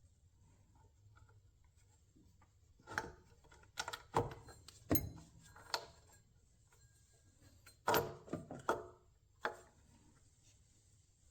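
Short knocks and clinks of metal parts and hand tools being handled during work on a car's power steering pump mounting, in two clusters: one about three to six seconds in and another about eight to nine seconds in.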